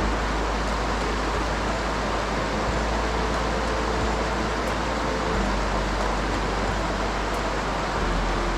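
Steady rushing of flowing creek water, an even, unbroken noise with no distinct events.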